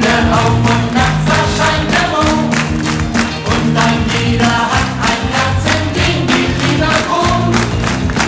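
Upbeat pop song, a group of voices singing together over a steady beat.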